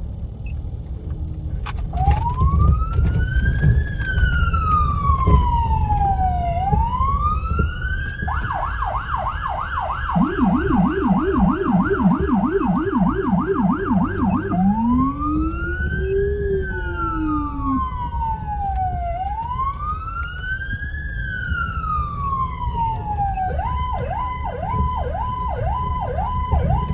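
Code 3 Z3 electronic siren with a Whelen Howler, heard from inside the vehicle and cycling through its tones. A slow wail rises and falls about every five seconds. About eight seconds in it switches to a fast yelp of about three sweeps a second, and the Howler's much lower tone joins in the same yelp. When the wail returns, the Howler makes one slow low rise and fall, and near the end the siren changes to a choppier pulsing tone. A low vehicle and road rumble runs underneath.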